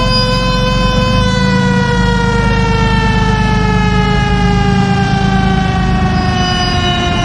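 A warning siren winding down, one steady tone falling slowly in pitch, over a loud low rumble.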